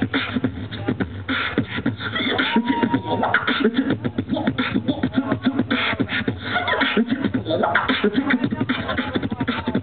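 A beatboxer performing through a microphone and PA: a fast, dense stream of vocal drum sounds, kicks, snares and hi-hat clicks, with a few pitched vocal notes woven in.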